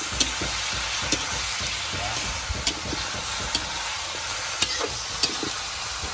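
Chicken pieces sizzling in hot oil in a steel wok, with a metal spatula clicking and scraping against the pan at irregular moments as they are stirred.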